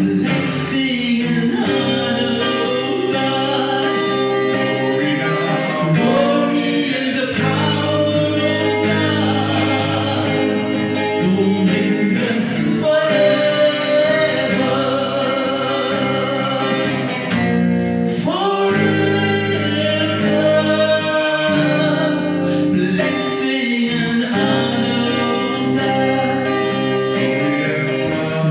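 A woman singing a gospel worship song into a microphone, amplified, in long phrases with held notes and vibrato.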